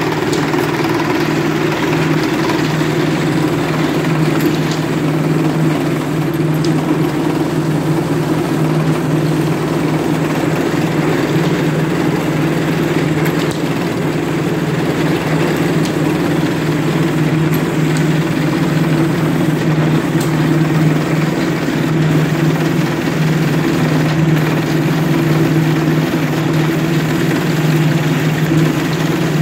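Rattan pole sizing machine running with a steady, low hum as rattan poles pass through its feed rollers and are shaved to size.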